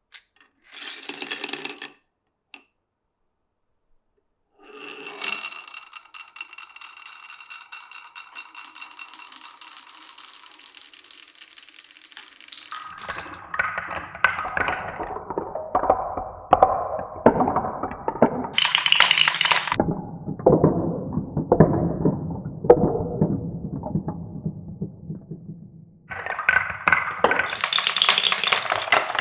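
Marbles running through a wooden marble run. First comes a short clatter, then a steady rolling sound with a ringing edge. After that come many quick clacks and knocks as they roll and drop along wooden tracks, with brighter clattering bursts about two-thirds of the way through and near the end.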